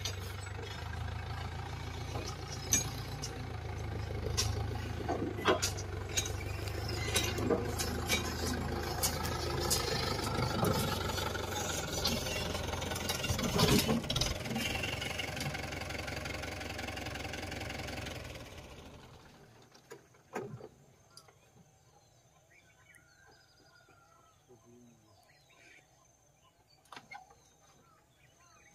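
Mahindra Yuvo tractor's diesel engine running, with frequent knocks and clanks. The engine dies away about nineteen seconds in, and after that it is quiet apart from a few faint bird chirps.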